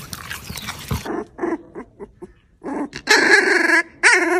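A young puppy crying: a run of short high cries that grow longer and louder, the loudest about three seconds in, then a wavering one near the end.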